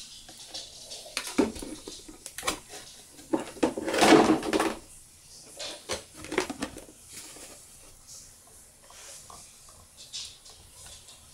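Clicks, taps and rustling of a plastic RC car body shell being handled and fitted over a 1/10 drift car chassis, with a louder scraping rustle about four seconds in.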